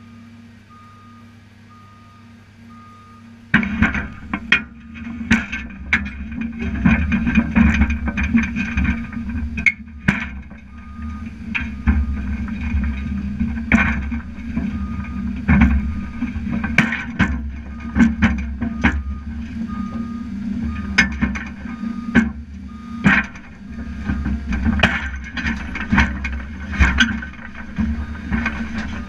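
Caterpillar 330C excavator's diesel engine, idling at first and then revving up sharply about three and a half seconds in as the machine tracks onto a steel lowboy trailer, its steel tracks clanking and banging repeatedly on the deck. A travel alarm beeps at intervals throughout.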